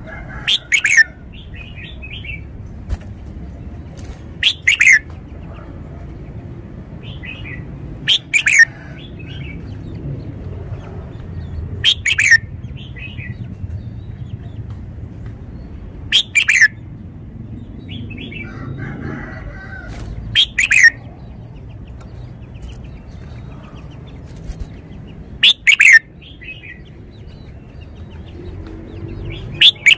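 Red-whiskered bulbul singing: a short, loud, clear phrase about every four seconds, eight in all, with softer notes in between.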